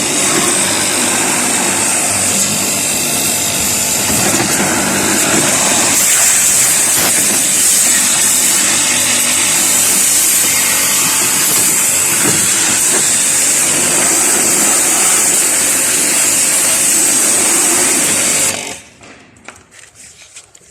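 Electric pressure washer running and spraying water over a split air-conditioner unit: a steady motor hum under a loud hiss of spray. It shuts off abruptly about eighteen seconds in.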